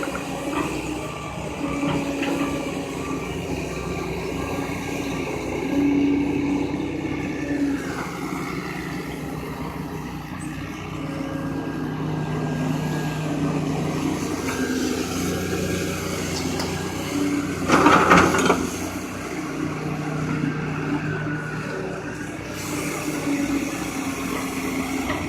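Backhoe's diesel engine running under changing load as it works, its pitch rising and falling, with one brief, louder burst of noise about two-thirds of the way through.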